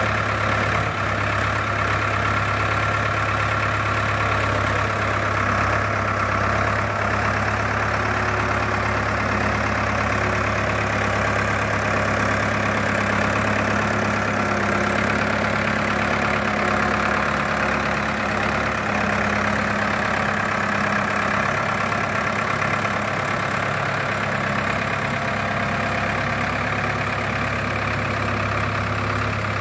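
Ford 5000 farm tractor's engine running steadily as the tractor is driven slowly.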